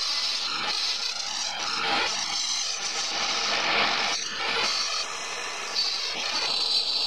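Wood lathe running with a pine ice-pick handle spinning and a hand-held tool or abrasive pressed against it, giving a steady hiss.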